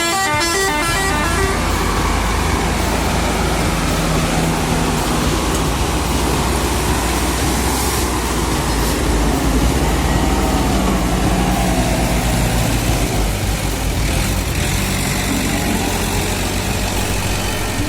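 Engines of heavy timber-hauling trucks running under load on a hill climb: a steady low drone with rough mechanical and road noise over it.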